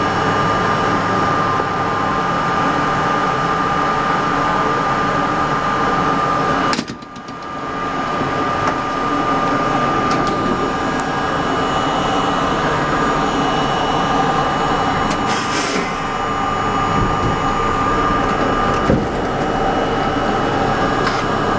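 An R32 subway car running slowly on elevated track, heard from inside at the front window: a steady mechanical hum with a high whine. The sound drops away suddenly about seven seconds in and builds back. A short hiss of air comes around the middle.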